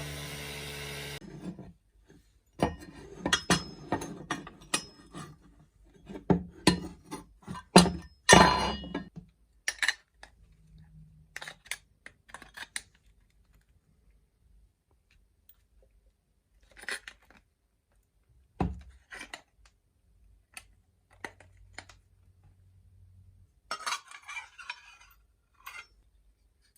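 Small metal parts clinking and knocking as they are picked up and set down, in irregular clusters of sharp strikes with quiet gaps, and a short scraping rattle near the end.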